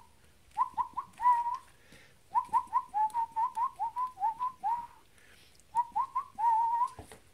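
Seven-week-old Airedale terrier puppies whining in short, high, rising whimpers. They come in three bursts: a few calls, then a quick run of about three or four a second, then a few more ending in a longer whine.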